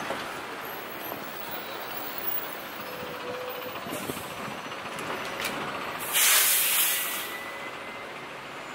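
Street traffic noise with a loud hiss of air lasting about a second, about six seconds in: a bus's air brakes releasing.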